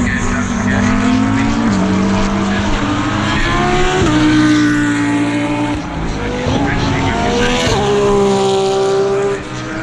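GT3 race car engines at racing speed: engine notes climbing in pitch and stepping down or up with gear changes several times.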